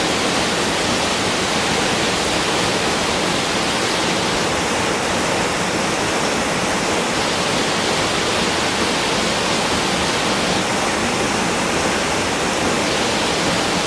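Loud, steady rush of falling or fast-flowing water: an unbroken even noise with no pauses or changes.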